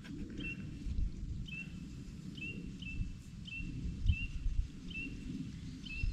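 A bird repeats a short, high chirp about once a second over a low, uneven rumble.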